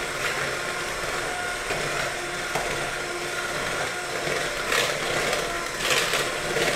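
Electric hand mixer running steadily, its beaters working through a thick butter, sugar and honey mixture in a bowl, with two brief scrapier moments near the end.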